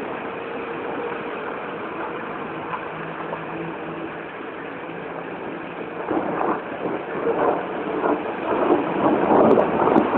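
Rain falling in a steady hiss, with a faint low hum underneath at first; about six seconds in it comes in louder, uneven surges.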